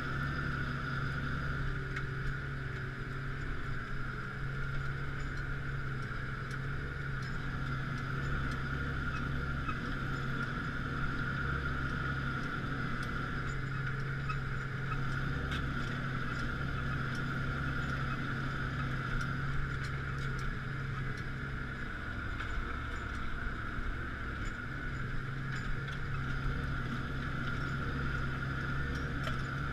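Claas Axion 840 tractor's six-cylinder diesel engine running steadily under load while pulling a five-furrow plough, with a steady high whine above the engine note.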